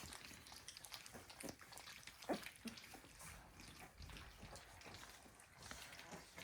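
Three-week-old North American Mastiff puppies eating gruel for the first time: faint, irregular lapping and smacking with many small wet clicks, and one slightly louder short sound a little over two seconds in.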